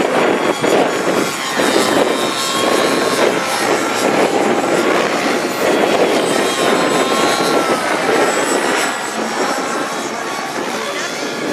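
Radio-controlled model helicopter in flight: a loud, steady buzz of engine and rotor that swells and dips in level, with a whine gliding up and down in pitch around the middle.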